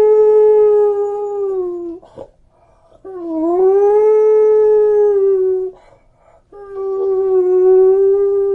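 A beagle howling in long, steady, level-pitched howls, each opening with a short upward slide. One howl ends about two seconds in, a second follows after a brief pause, and a third begins near the end.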